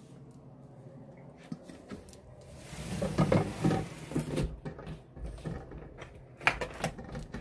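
Rustling and clattering handling noise, loudest for a couple of seconds in the middle, then a few sharp clicks near the end.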